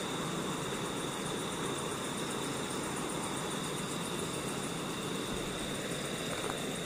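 Steady night ambience: an even rushing noise with a constant high-pitched drone of insects, unchanging throughout.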